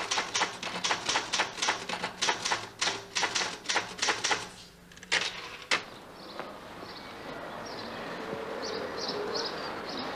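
Typewriter typebars striking the paper in a fast run of sharp clicks, about five a second, stopping about six seconds in. After that a steady outdoor background hiss slowly grows louder, with a few faint high chirps.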